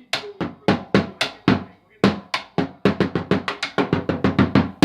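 Drum beaten in a steady run of single strikes, about three or four a second, speeding up to about five a second from about two seconds in.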